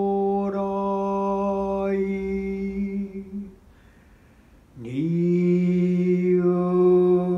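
A man's voice chanting a Buddhist sutra in Japanese, holding each drawn-out syllable on nearly one pitch. About halfway through it stops for a breath, then resumes with a short upward slide into the same note.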